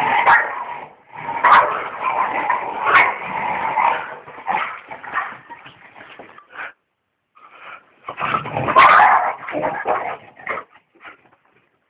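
Dog yelping and whimpering in repeated bursts, loud through the first four seconds, dropping away, then loud again about nine seconds in.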